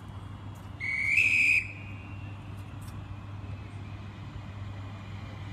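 A train horn gives one short, high two-tone blast of under a second, stepping up in pitch partway through, over a steady low hum.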